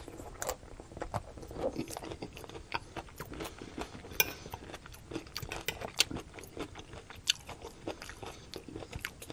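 Close-miked chewing of a mouthful of stir-fry: many irregular crunches and mouth clicks.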